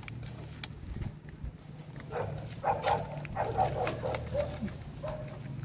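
Animal calls, short and broken, starting about two seconds in and going on for about three seconds, over a low steady hum.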